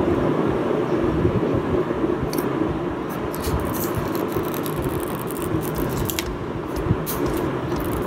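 Thin clear protective plastic film being picked at and peeled off a phone's glass back and screen. Scattered crinkles and crackles begin a couple of seconds in, over a steady background rush.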